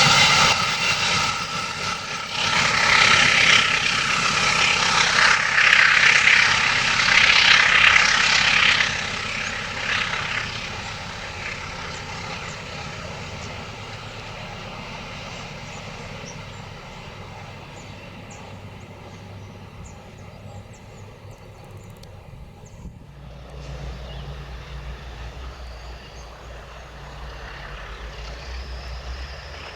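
A diesel-hauled train passing, loud for the first nine seconds or so and then fading away as it rolls off. About 23 seconds in the sound changes suddenly to a quieter low, steady rumble.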